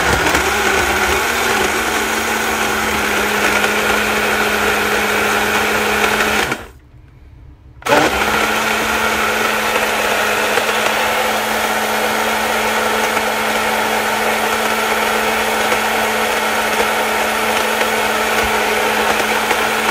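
Cornell personal blender running, its motor blending honeydew, oats, dates and milk into a thick drink. The motor stops for just over a second about a third of the way in, then starts again and runs steadily.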